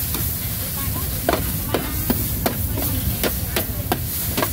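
Stir-frying noodles in a large steel wok: a metal spatula clinks and scrapes against the pan about three times a second from about a second in, over the steady sizzle of the food and a low steady rumble.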